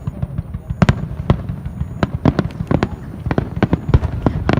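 Fireworks bursting in quick succession: a rapid, irregular run of sharp bangs and crackles, about three a second, over a low rumble.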